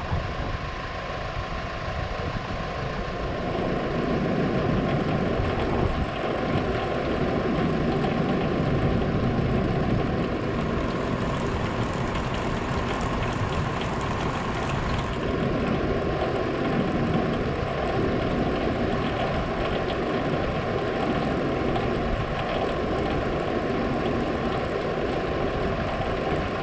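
New Holland tractor's engine running steadily, driving the rear-mounted snowblower.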